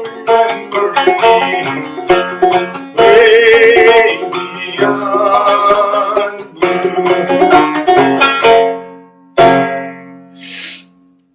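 Banjo played in clawhammer style, with quick plucked notes and brushed strums. It ends on a final strum that rings out and fades about three-quarters of the way through, followed by a brief soft rustle.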